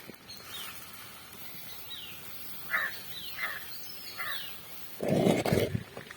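Birds chirping outdoors in short, falling notes, about five calls a second or so apart, over a faint background hiss. About five seconds in comes a louder, brief noisy scrape or rustle.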